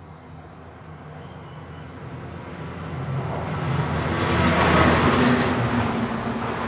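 A vehicle passing by: a broad rushing noise over a low engine hum that swells from about two seconds in to a peak near five seconds, then fades.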